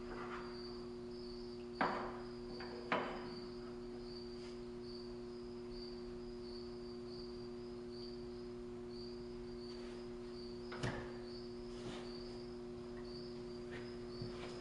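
A few short wooden clacks from a hand-built wooden impulse-engine kinetic sculpture as it is set going, two about two and three seconds in and two fainter ones near eleven and twelve seconds. Under them run a steady low hum and a faint, evenly pulsing high chirp.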